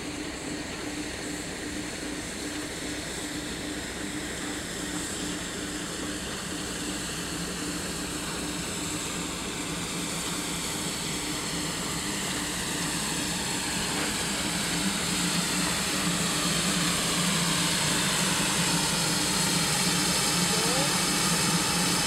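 Ivatt Class 2 2-6-0 steam locomotive drifting slowly into a station with its train, growing steadily louder as it approaches, with a steady low hum. In the second half, hissing steam from the open cylinder drain cocks grows louder.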